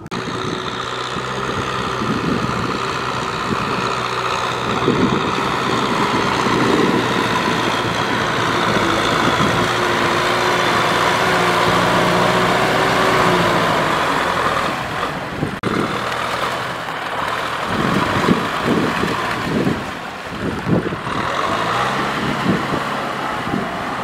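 Kubota farm tractor's diesel engine running steadily as it pulls a disc plough through deep flooded mud, its pitch wavering slightly, with irregular thumps in the last few seconds.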